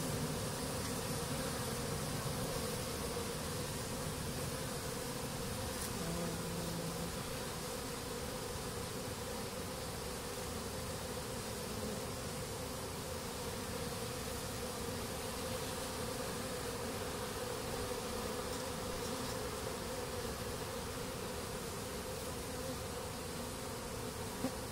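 Steady buzzing of a large number of honeybees in flight, swarming over and feeding on leftover crushed honeycomb and spilled honey after honey pressing.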